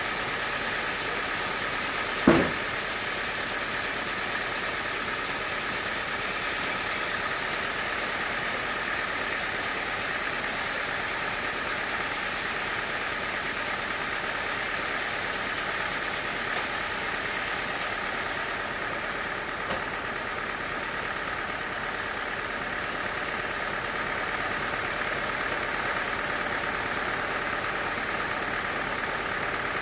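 Sawmill machinery running steadily with a constant whine. One sharp knock comes about two seconds in.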